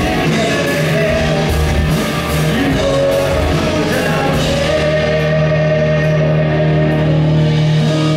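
Live rock band playing loud with distorted electric guitars, bass, drums and singing. About five seconds in the drums and cymbals stop, leaving a held chord ringing.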